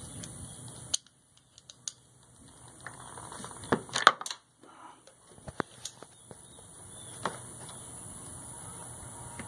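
Handling noise from a plastic coolant overflow tank being fitted back onto a tractor: scattered clicks and knocks of plastic and metal, loudest in a quick cluster about four seconds in.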